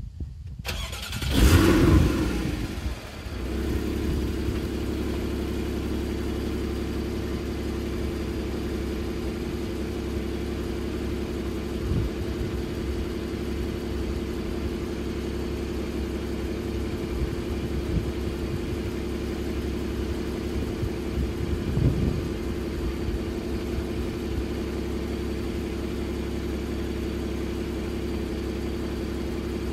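Porsche Boxster 981's flat-six engine starting about a second and a half in with a brief rev flare, then settling into a steady idle.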